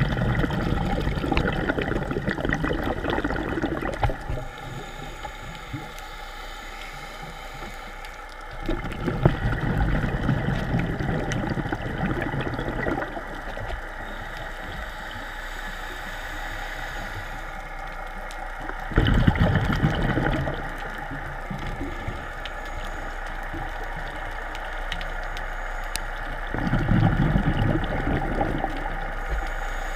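Scuba diver's exhaled bubbles gurgling out of the regulator, heard underwater in four bursts several seconds apart over a steady hum.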